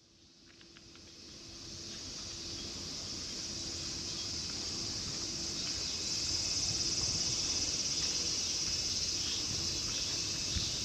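Cicadas in a summer chorus: a steady, high buzzing hiss that swells in over the first two seconds and holds.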